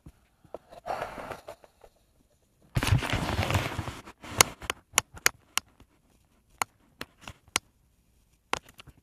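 Handling noise on a tablet's built-in microphone held right up to the face: a loud rush of noise about a second long, then a scatter of sharp clicks and taps.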